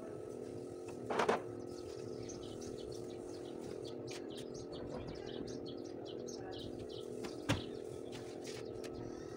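Small birds chirping in quick, repeated calls over a steady hum. There is a brief clatter about a second in and a single sharp thud about seven and a half seconds in: the Toyota Avalon's trunk lid being shut.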